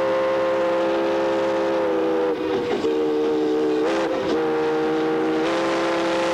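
Steam locomotive's chime whistle blowing one long, unbroken blast of several tones at once. Its pitch dips slightly about two seconds in, wavers twice, then steps back up near the end.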